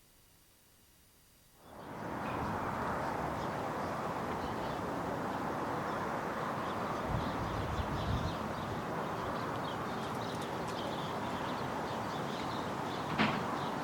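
Outdoor ambience that starts abruptly after a moment of near silence: a steady background rumble with small birds chirping over it, and a short click near the end.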